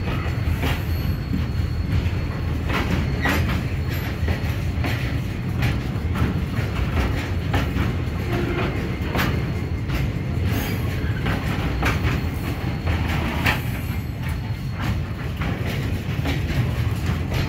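Freight train of covered phosphate hopper wagons rolling past at close range: a steady rumble with the wheels clacking irregularly over the rail joints.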